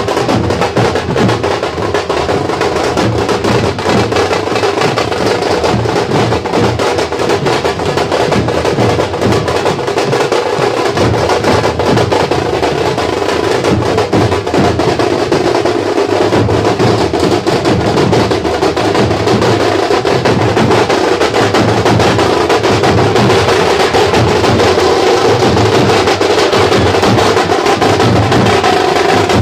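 Procession band of strap-carried drums, side drums and bass drums, playing a loud, fast, unbroken beat.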